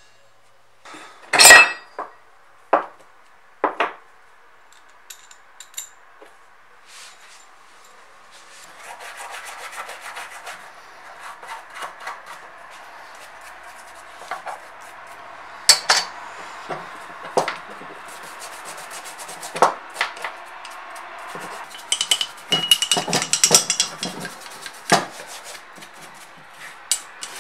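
A few sharp metal clanks as small parts and locking pliers are handled on a wooden workbench, the loudest about a second and a half in. Then a toothbrush scrubs grime off a green-painted metal part of a Kity 652 mortiser, giving a steady scratchy rubbing with frequent small taps and clicks of the part, busier near the end.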